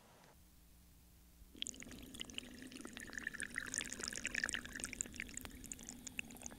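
Water pouring into a test chamber, filling it in a dense run of splashing that starts about a second and a half in, over a low steady hum.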